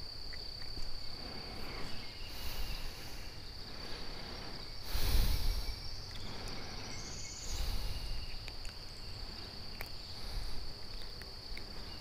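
Insects making one steady, unbroken high-pitched trill, with a few short rustling bursts over it; the loudest rustle comes about five seconds in.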